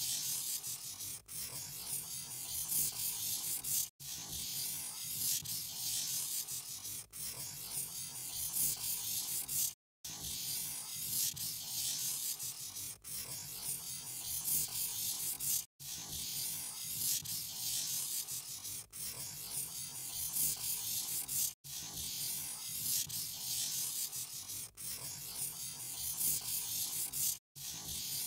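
Marker scratching across a drawing surface, a continuous dry rubbing with a short break about every three seconds.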